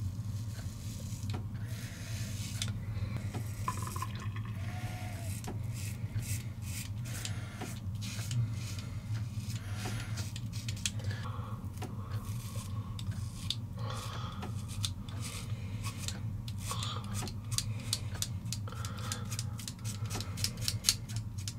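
Five-blade razor cartridge scraping through stubble and shaving cream on the jaw and neck: many short rasping strokes, coming faster in the second half, over a steady low hum.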